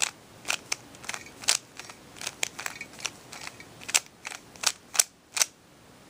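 Plastic 3x3 Rubik's Cube layers clacking as they are turned, a quick, irregular run of sharp clicks as the corner-flipping moves R' D' R D are repeated. The clicking stops about five and a half seconds in.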